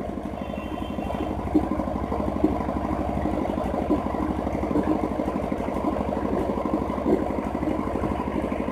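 A steady low rumble, engine-like and even throughout, with a few faint clicks scattered through it.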